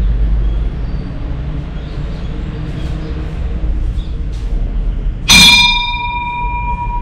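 A temple bell struck once about five seconds in. It rings on with several clear tones, the lowest holding longest, over a steady low rumble.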